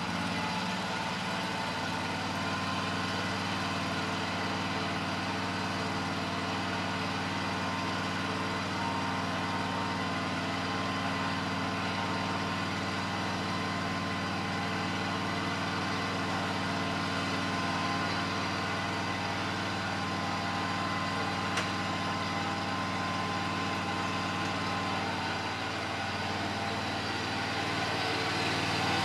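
An engine idling steadily, its level rising a little near the end.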